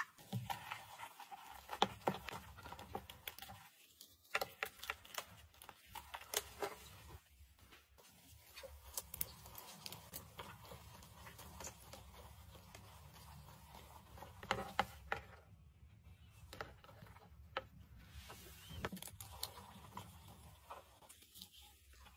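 Irregular scratching and sharp little clicks as a black scorpion and a large cricket scuffle on coconut-fibre substrate, legs and bodies scraping and tapping.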